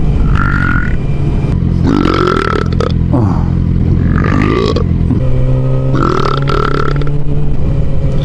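A man belching repeatedly: about five long, drawn-out burps with wavering, gliding pitch, over a steady low engine drone.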